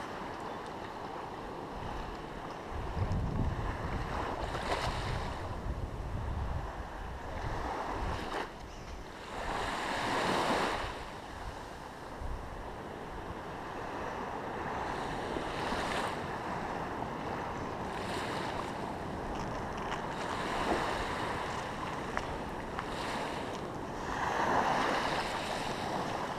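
Sea waves washing in, with a larger surge about ten seconds in and another near the end. Wind rumbles on the microphone for a few seconds near the start.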